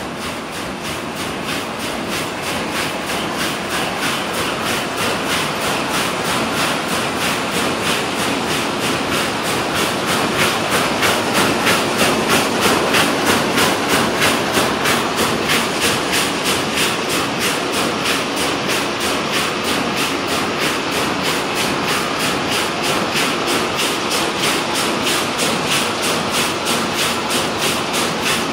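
Van de Wiele VTR33 carpet weaving loom running at speed: a loud, steady mechanical clatter beating in a fast, even rhythm of a few strokes a second, growing louder toward the middle.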